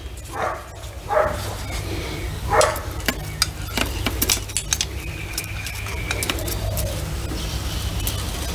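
Steel screwdrivers clicking and scraping against the transmission shaft and thrust bearing inside an open backhoe gearbox case as they lever at the bearing, a string of light metallic clicks over a steady low hum.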